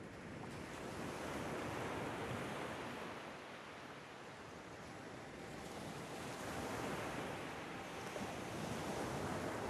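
Soft, even rushing noise like ocean surf, swelling and easing every few seconds.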